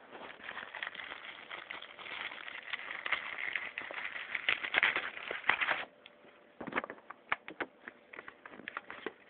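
Packaging being handled: continuous crinkling and rustling for about six seconds, then scattered light clicks and taps.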